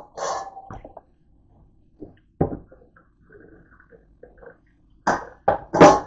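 Dishes being handled in a stainless steel kitchen sink: a few short, irregular clatters and knocks, three in quick succession near the end, the last the loudest.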